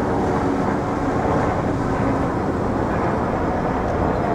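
Steady rumble of distant engines, with faint tones that drift slightly in pitch.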